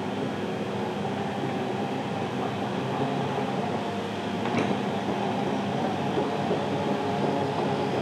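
Cat 308E2 mini excavator's diesel engine running steadily, with a low rumble and some rattle.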